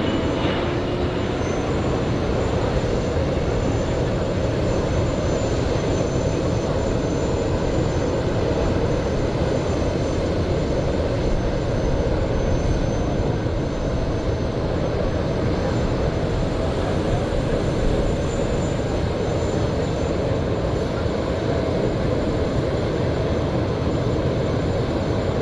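Steady jet noise from a Boeing 777-9's two General Electric GE9X turbofans in flight: an even, low rumble with no breaks.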